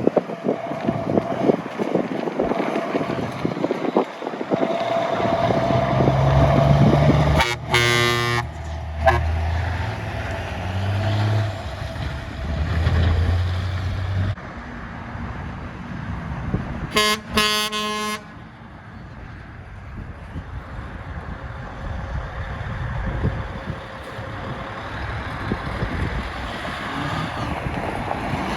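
Trucks passing in road traffic, their engines running low, with two honks of a truck horn, each about a second long: one about eight seconds in and another about seventeen seconds in.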